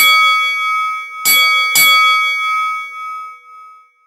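Small brass puja hand bell rung in three strokes, about a second in and again just after, each stroke leaving a clear ringing tone with several overtones that slowly dies away; the last ring fades out near the end.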